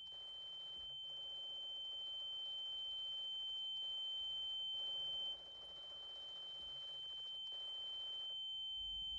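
A steady high-pitched ringing tone with a fainter lower tone beneath it. It slowly grows louder, dips briefly about five seconds in, then builds again.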